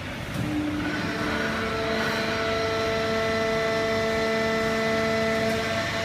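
Fully automatic horizontal hydraulic baler and its feed conveyor running: a steady machine noise with a whine of several held tones.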